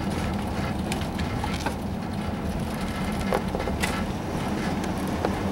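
Car cabin noise while driving: a steady low rumble of engine and tyres on the road, with a few faint clicks and rattles.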